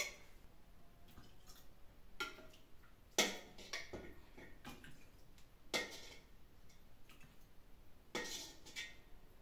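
Kitchenware clinking and knocking now and then: about five separate short clatters, some with a brief ring.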